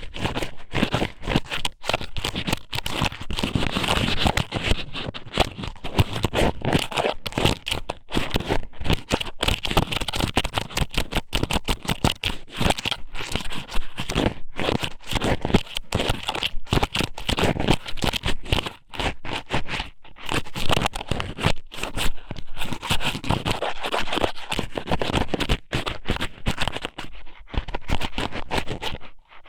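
Dried shredded squid strips (ika sōmen) pushed into and scraped around a binaural microphone's ear, making dense, continuous crackling and scratching with a few brief pauses.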